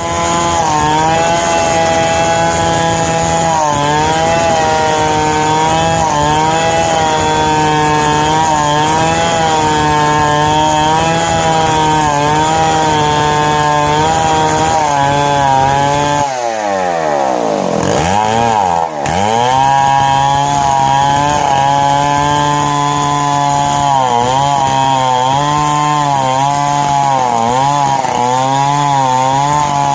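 Chainsaw ripping a narra log lengthwise into one-inch boards, the engine running at high revs under load with its pitch wavering. About sixteen seconds in the engine slows sharply, then picks back up over about three seconds.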